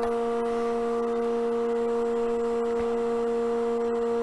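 Steady electric hum at one fixed pitch from the woodturning lathe setup's motor, running evenly.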